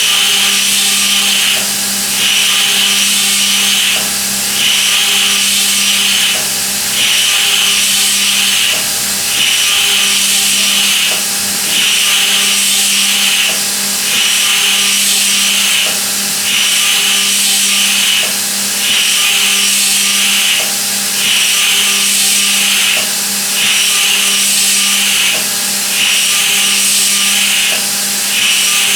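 A milling machine's high-feed cutter cutting metal in repeated passes. Each pass makes a loud, high cutting noise that stops briefly about every two seconds, over a steady machine hum.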